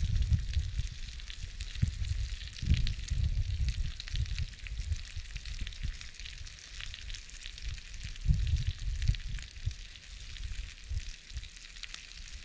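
Food sizzling in a frying pan: a steady hiss dotted with small crackling pops, over irregular low rumbles.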